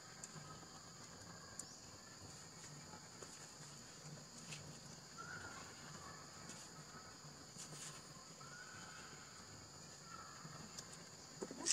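Faint, steady, high-pitched drone of insects, with a few soft short calls and light clicks over it. A brief louder sound comes right at the end.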